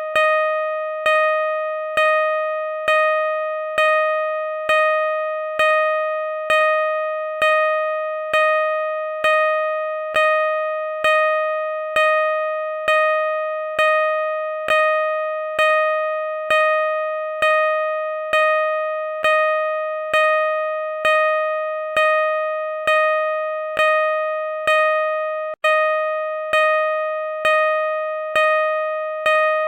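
Car parking sensor beeping: one steady pitched tone repeated about once a second, each beep starting sharply and fading into the next. The beeping cuts out for an instant a few seconds before the end.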